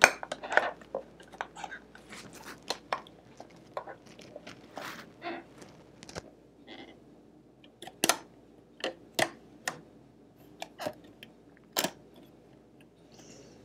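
Irregular clicks, creaks and knocks of hard plastic as hands grip, pry and pull at the side housing and handwheel of a 1970s Kenmore sewing machine, trying to pop the part off. The sharper clicks come in the second half.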